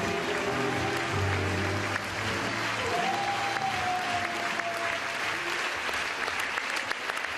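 Audience applauding steadily, with the closing notes of the rumba music dying away a little past the middle.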